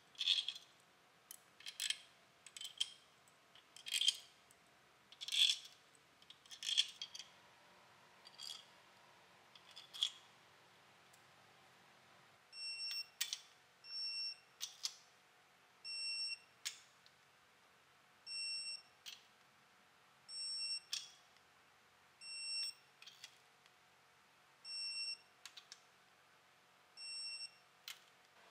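Steel main-cap bolts and washers clinking as they are set into the engine block. Then a digital torque wrench is pulled about ten times, roughly every two seconds, each pull ending in a short electronic beep as a main-cap fastener reaches its set torque.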